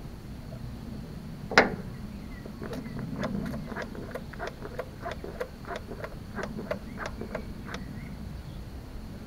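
A sharp click, then a run of about fifteen light, even clicks at roughly three a second: the hand primer of a 1967 Zetor diesel tractor's fuel lift pump being worked to fill the fuel system.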